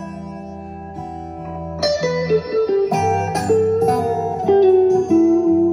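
Music with plucked guitar notes over sustained tones and a bass line, played through Klipsch LaScala AL5 horn loudspeakers and picked up in the room. The guitar comes in about two seconds in and the bass about a second later, so the music grows louder.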